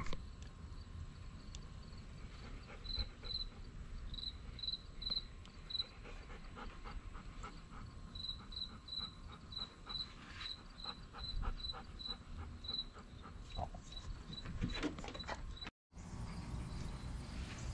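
An insect chirping outdoors: a short, high chirp at one pitch repeats two or three times a second in runs with pauses, over a low steady background rumble.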